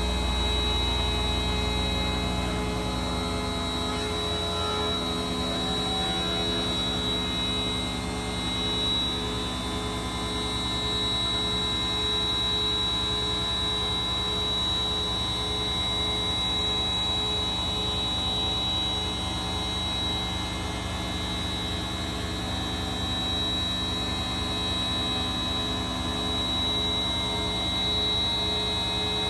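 CNC milling machine face-milling a table flat: a steady machine hum with a high, level whine from the spindle and cutter.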